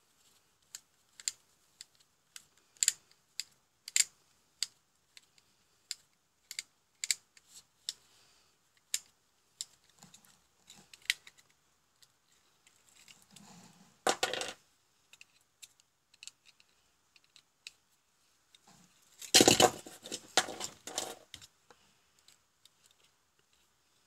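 Screwdriver working the screws and sheet-metal case of a small enclosed switching power supply: sharp, irregular metal clicks, one or two a second, then a brief scrape about fourteen seconds in and a louder metallic clatter around twenty seconds in as the perforated steel cover is pried and lifted off.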